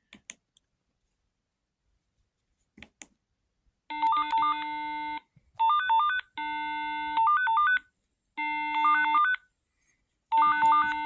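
Hytera DMR handheld radio ringing with its electronic incoming-call ringtone for a private call: a short melody repeated in phrases about a second long, with short gaps between them, starting about four seconds in. A few faint key clicks come before it.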